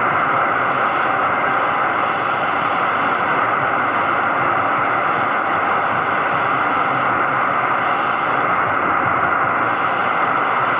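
Belka-DX shortwave receiver in AM mode on 6205 kHz, giving a steady hiss of static with no clear programme audible. The pirate station's signal is weak, down in the noise.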